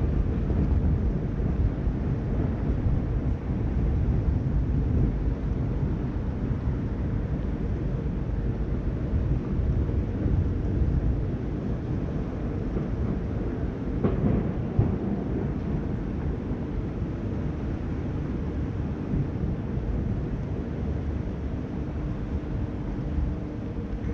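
Steady low rumble of wind buffeting the microphone by the water, with a faint steady hum of ship machinery underneath.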